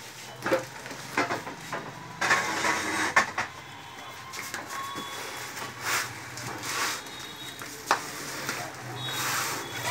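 Large plastic-wrapped cardboard carton being handled and tipped over: irregular rustling and scraping with a few sharp knocks, over a low steady hum.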